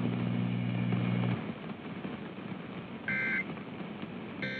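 Emergency Alert System end-of-message data bursts: short, harsh two-tone digital warbles, one about three seconds in and the next starting near the end, signalling that the alert message has ended. They are preceded by a low steady hum that stops about a second and a half in.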